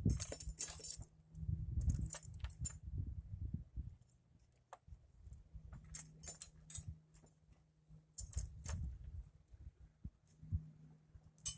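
Stainless steel spokes clinking and jingling against each other and a motorcycle wheel hub as they are pushed through the hub flange holes, in several short spells with pauses between.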